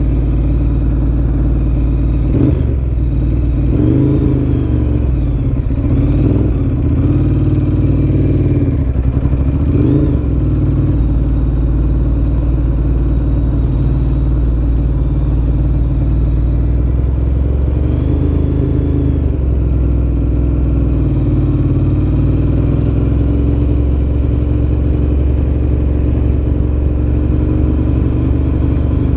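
Ducati Monster 1100 EVO's air-cooled L-twin running through a Termignoni exhaust while riding. Engine speed rises and falls several times in the first ten seconds, then holds steadier, with a change about 18 seconds in.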